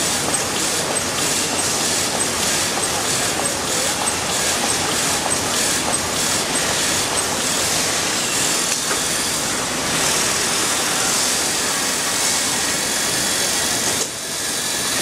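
Toilet paper production line running: a loud, continuous mechanical clatter with a regular clacking beat through the first half.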